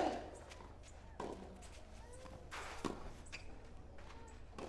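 Tennis rally: the ball struck back and forth by rackets, sharp hits about every one to two seconds, the first the loudest.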